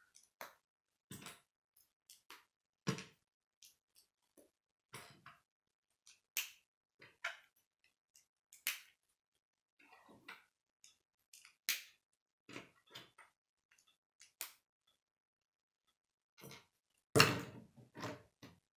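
K'nex plastic pieces clicking and snapping as they are handled and pressed together, in irregular sharp clicks, with the loudest snaps a little before the end.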